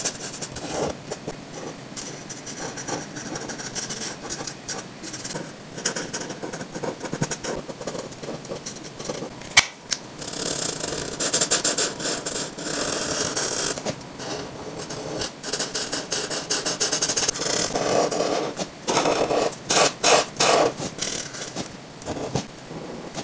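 Touch Mark alcohol marker nibs scratching and rubbing across paper in short, irregular colouring strokes. A single sharp click comes near the middle.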